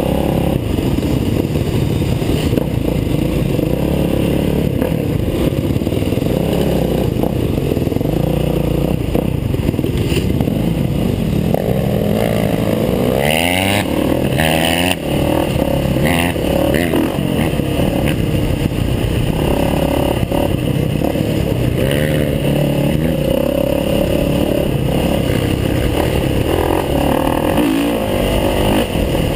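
Dirt bike engine running close to the microphone as the bike rides a dirt trail, revving up and down about halfway through.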